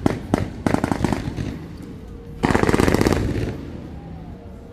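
Fireworks going off: a quick run of sharp bangs, then about two and a half seconds in a dense burst of rapid crackling lasting about a second that fades away.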